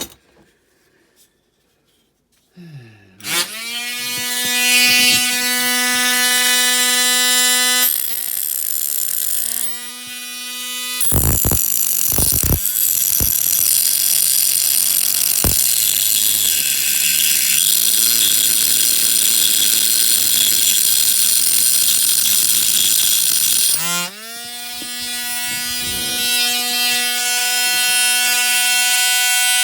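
Small high-speed rotary tool with a cut-off disc spinning up to a steady whine, then cutting into the zinc-alloy diecast body of a toy taxi to remove the front wings: for much of the time the whine gives way to a harsh grinding hiss as the disc bites the metal, with a few knocks, before it runs free and whines steadily again.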